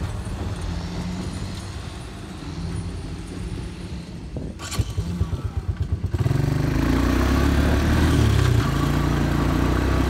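Combine engine running steadily, with a quick pulsing near the middle. About six seconds in, the running sound jumps suddenly to a louder, fuller level and holds there.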